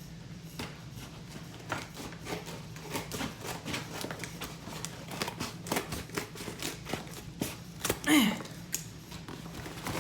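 Hands unpacking a shipped package: scattered crinkling, rustling and small clicks and taps of packaging being opened and handled, with a louder brief scrape about eight seconds in, over a steady low hum.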